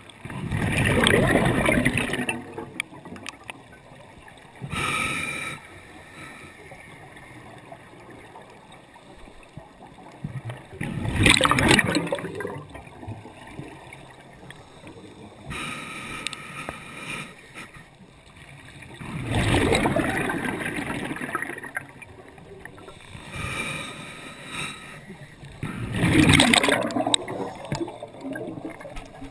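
A scuba diver's regulator breathing underwater, picked up through a GoPro dive housing: four loud gushes of exhaled bubbles several seconds apart, with shorter, fainter hissing inhalations between them.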